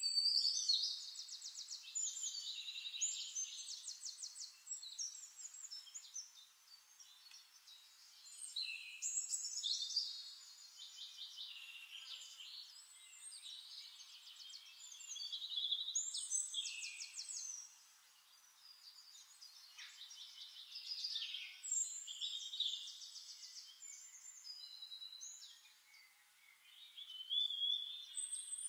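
Bird song: phrases of rapid, high trilled notes a couple of seconds long, repeating every several seconds with quieter gaps between.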